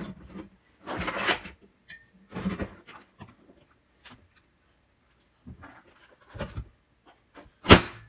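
A run of clunks and scrapes as a black drop-in kitchen sink is lifted and set back into its countertop opening, with the loudest knock near the end.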